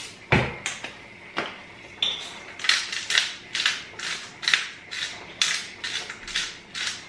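Hand-twisted spice mill grinding seasoning, a short gritty crunch with each twist, about two a second. It is preceded by a couple of knocks near the start.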